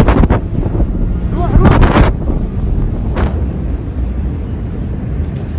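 Loud low rumbling and buffeting noise overloading a phone microphone, with a few short sharper noises and a faint voice partway through.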